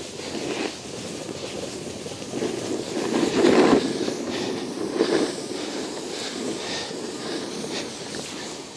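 Snowboard sliding and scraping over snow, with wind rushing past; the scrape swells loudest about three and a half seconds in, as on a turn.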